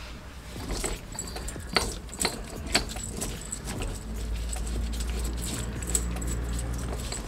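Metal tools clinking and clicking against steel parts while a silent block is fitted into a rear upper wishbone, with a steady low hum coming in about halfway.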